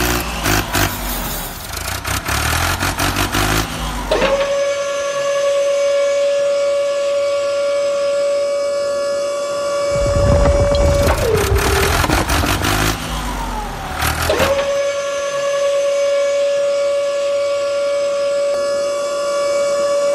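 A toy tractor's engine sound at first. Then a small electric motor whines at a steady pitch for about seven seconds as the miniature tipping trailer's bed rises. Around ten seconds in, a rush of miniature cement bricks slides off while the motor winds down, and the motor whines steadily again for about six seconds as the bed lowers, winding down near the end.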